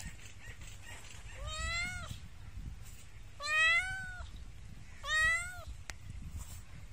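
A domestic cat meowing three times, each meow rising and then falling slightly in pitch; the middle meow is the loudest.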